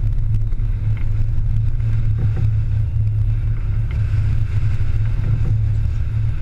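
Sportfishing boat's engines running with a steady, deep drone, with wind and water noise over it.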